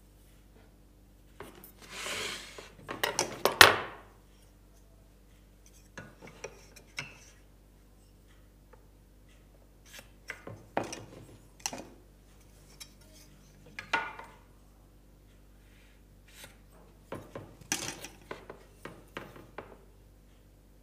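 A steel rule, square and sliding bevel being set down and slid over timber while a pencil marks out a workpiece. Clusters of light metallic clinks, taps and scrapes come and go, the loudest about three and a half seconds in.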